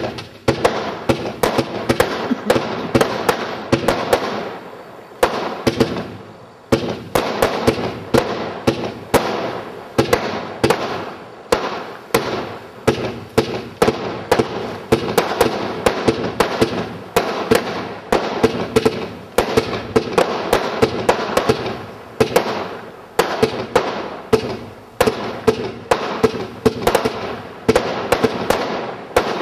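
Single-ignition firework barrage cake firing: a rapid run of sharp bangs from launches and bursts, several a second, with a crackling haze between them and a short lull about six seconds in.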